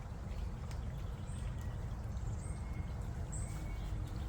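Steady low wind rumble on the microphone, with faint high bird chirps about once a second and a few light clicks of gear being handled.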